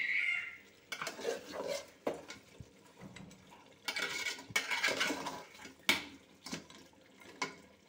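A cooking spoon scraping and clinking in a pot while stirring a thick duck curry with potatoes, so the nearly dry masala doesn't stick to the bottom. The sounds are scattered: a few sharp clinks and a longer scraping spell in the middle.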